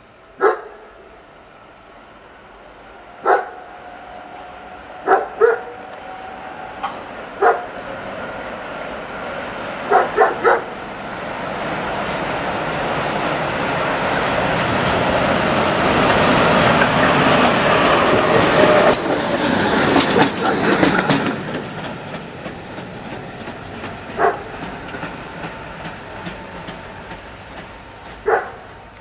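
Tatra T4D tram passing on the rails: the rumble of its wheels builds over several seconds, peaks with a quick run of clicks as the wheels cross rail joints, then fades. A dog barks on and off, singly and in pairs, before and after the pass.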